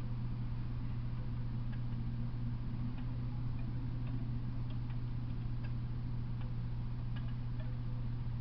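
Steady low electrical hum with faint, irregular ticks scattered through it.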